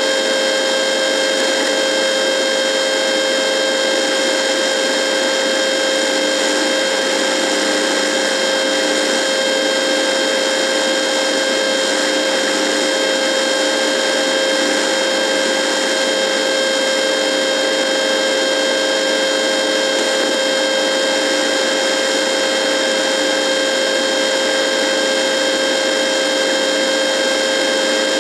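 A radio buzzing: a steady electronic hum with several fixed tones over static hiss, unchanging throughout.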